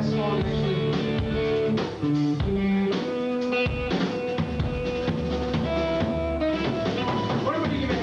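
Live rock band playing: drum kit and electric guitars with sustained chords, with a brief break about two seconds in.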